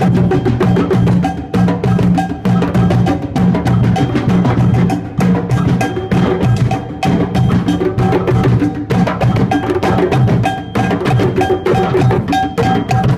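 Loud music with fast, busy percussion and drums.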